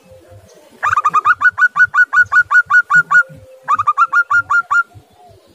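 Zebra dove (perkutut) giving a rapid staccato call: a long run of short, sharp notes that fall in pitch, at about seven a second, then after a short break a second, shorter run.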